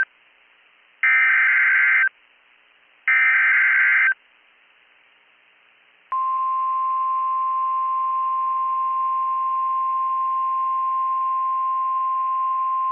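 Emergency Alert System data bursts: two harsh, buzzing SAME header bursts, each about a second long and a second apart. After about two seconds of quiet, a steady NOAA Weather Radio 1050 Hz warning alarm tone begins about six seconds in. Together they signal that a new warning is about to be read.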